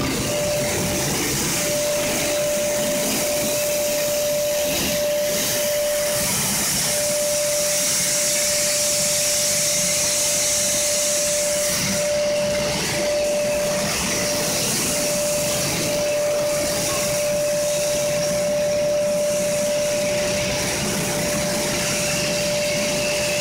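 A PVC granulating machine line running: a steady mechanical whir and airy hiss with a constant whine over it.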